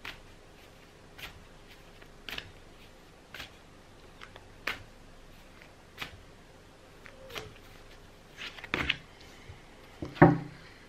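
A deck of oracle cards being hand-shuffled overhand, a short soft card snap about once a second, with a louder knock near the end as cards are put down on the table.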